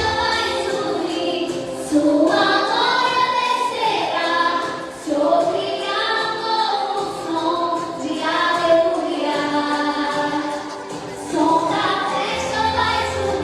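A vocal group singing a gospel song in harmony, in sung phrases of a few seconds each. The low bass accompaniment is nearly absent until it comes back near the end.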